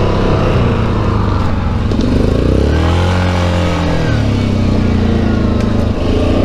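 ATV engine running under way, heard from on board the quad. Its revs rise and fall once about halfway through.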